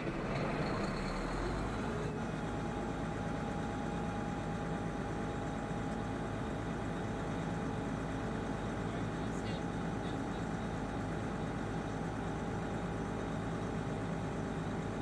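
Schramm 450WS drilling rig's engine starting up and then running steadily, with a steady whine joining in about two seconds in.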